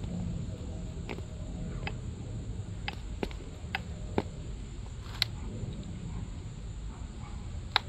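Scattered light clicks and taps, about eight at irregular intervals, as a blue adjustable rear camber arm and the old factory arm are handled and lined up side by side on pavement, over a steady low outdoor rumble.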